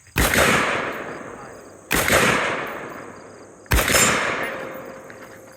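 Three rifle shots, a little under two seconds apart, each followed by a long echoing tail that fades before the next.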